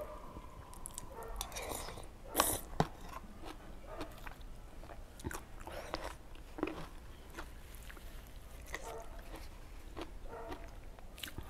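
Close-up eating sounds: wet chewing and crunching of bamboo-shoot curry, with small clicks and scrapes of a metal spoon in a plastic container. There is a brief louder rustle and a sharp click about two and a half seconds in.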